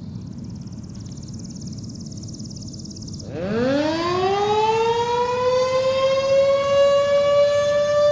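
Tornado warning siren starting its monthly test: about three seconds in it winds up, its pitch rising quickly and then levelling off into a loud steady wail. Before it starts there is only a low outdoor rumble and a faint high whine.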